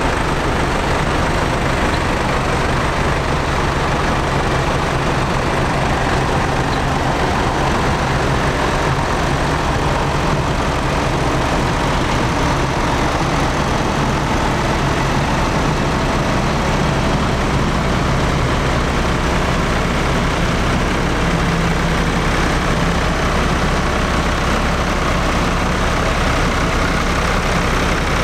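Heavy tractor engines running steadily, with a low engine note that shifts a little in pitch now and then.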